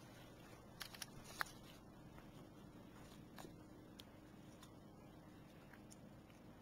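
Near silence: room tone with a few faint short clicks, the sharpest about a second and a half in.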